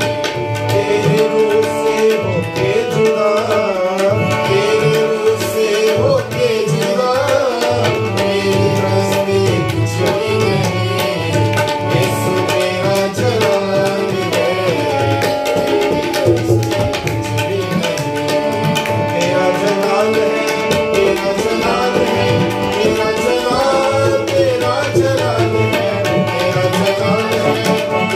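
Tabla played in a steady rhythm under sustained harmonium chords, with a man singing a devotional song over them.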